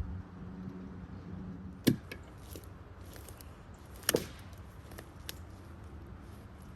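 Two sharp knocks about two seconds apart, the second one doubled, with a few faint clicks between, over a low steady hum that dies away in the first two seconds.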